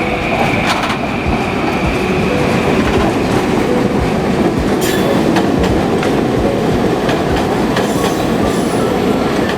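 A moving vehicle running: a steady loud rumble and rattle with scattered clicks, and a high whine that fades out about two and a half seconds in.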